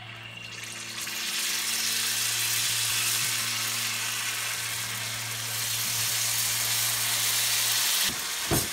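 Unniyappam batter sizzling as it is ladled into hot coconut oil in the wells of an unniyappam pan. The frying hiss builds over the first second as more batter goes in, then holds steady, with a steady low hum beneath.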